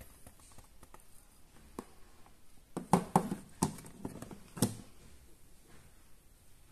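Light knocks and taps of plastic as a hand handles the grey plastic sink basin of a wooden toy kitchen: a few scattered taps, a cluster of louder knocks about three seconds in, and one last knock a little over a second later.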